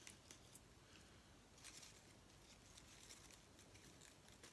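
Near silence with a few faint, soft rustles of fresh basil leaves being picked off a potted plant and laid into a soft pancake wrap.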